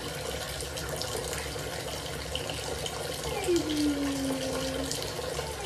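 Bathtub tap running, its stream splashing over a pug puppy held under it: a steady rush of water. About three and a half seconds in there is a single short whine that falls in pitch and then holds briefly.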